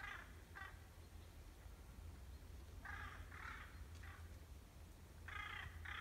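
A series of short, harsh, raspy animal calls, about seven in all, several coming in quick pairs, over a faint low rumble.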